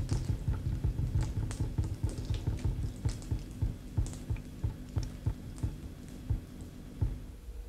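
Water dripping and splattering in irregular drops from a shower tap onto a concrete floor, a quick uneven pattering of taps and thumps. A faint steady hum sits underneath and stops near the end.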